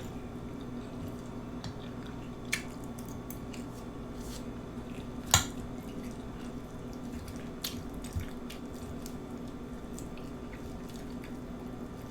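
Wet mouth clicks and smacks of someone chewing food, scattered and sparse, with one sharper click about five seconds in, over a steady low hum.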